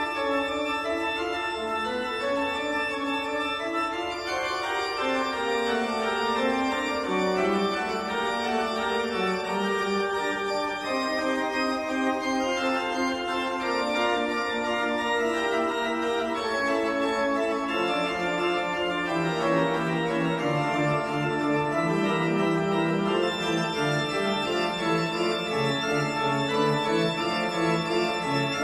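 Background music of held, organ-like notes moving from pitch to pitch, with a lower line of sustained notes beneath.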